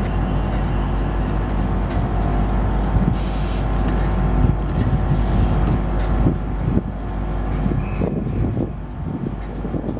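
Class 91 electric locomotive pulling slowly out of the station, a steady low hum from its motors and blowers with wheel and rail noise. Two short bursts of air hiss come about three and five seconds in.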